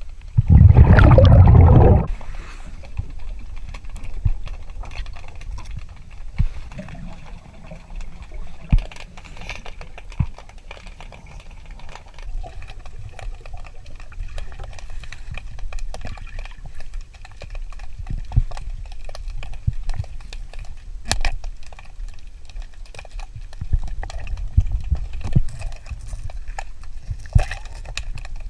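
Underwater sound of a scuba diver: a loud rush of exhaled regulator bubbles lasting about a second and a half, early in, then scattered clicks and knocks as the diver handles things on the riverbed.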